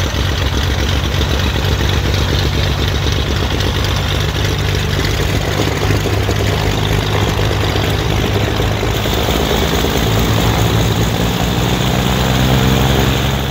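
Twin Continental piston engines of a 1969 Beechcraft Baron D55 running at low taxi power, propellers turning. The engine note shifts about two-thirds of the way through, and the sound grows louder near the end as the plane comes closer.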